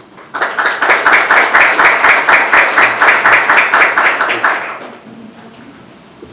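Audience clapping: a run of sharp claps, about five a second, starting about half a second in and dying away around five seconds in.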